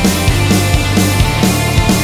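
Background rock music with a steady, driving drum beat of about two beats a second.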